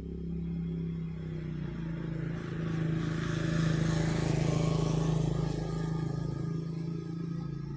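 A road vehicle, such as a car or motorbike, passing by: its rushing noise swells to a peak about halfway through, then fades, over a steady low hum.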